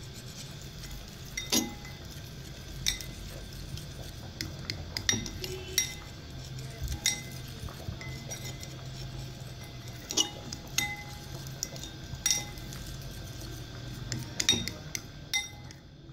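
Metal fork whisking a thick marinade in a ceramic bowl: irregular sharp clinks of the fork against the bowl, about one a second, with soft wet stirring between them.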